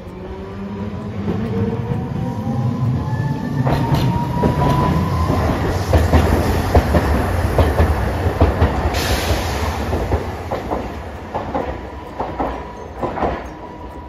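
Hiroden 3900-series articulated tram passing close by on street track: a motor whine rising in pitch over the first few seconds, then the rumble of its wheels with a run of clickety-clack over the rail joints, thinning out near the end.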